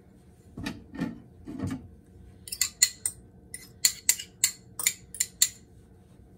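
Utensil scraping and tapping the last of the marinara sauce out of a measuring cup into a mixing bowl: a few soft scrapes, then about ten sharp taps in quick succession over three seconds.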